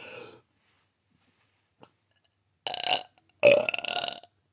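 A woman belching twice in quick succession about three seconds in, the second burp louder and longer. They are forced burps, which she rates as not as good as her natural ones.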